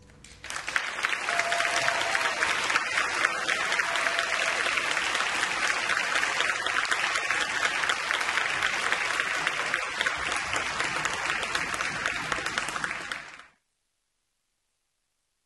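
Audience applauding steadily at the end of a ballet dance number, then cut off suddenly near the end.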